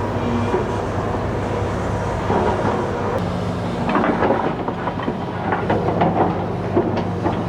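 Hidromek 220 LC tracked excavator's diesel engine running steadily. Its note changes about two seconds in, and from then on metal clanks and rattles come from the machine working, growing busier toward the end.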